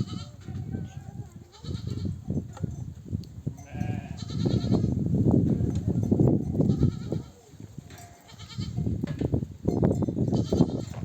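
A flock of sheep bleating, several wavering calls one after another: ewes calling to their lambs at suckling time. Underneath runs a dense low shuffling and knocking from the crowded flock.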